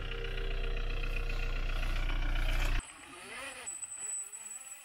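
VW T3 Syncro van's TDI turbo-diesel engine running steadily as the van drives off-road. The sound cuts off suddenly a little under three seconds in, leaving a much quieter stretch.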